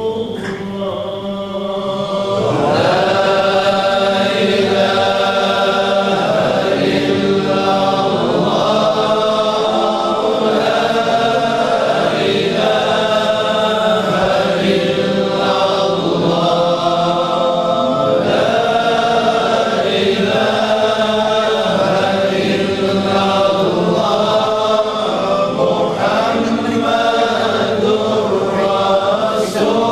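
A large group of men chanting an Islamic devotional chant together in unison, the voices swelling to full strength about two seconds in and then running on steadily.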